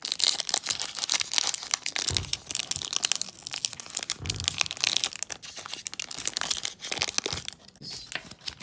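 Foil wrapper of a Pokémon Sun & Moon booster pack crinkling and tearing as it is opened by hand, a dense run of crackles throughout.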